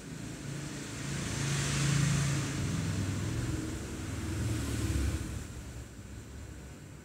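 Passing motor traffic: engine and road noise that swells to a peak about two seconds in, again about five seconds in, then fades away.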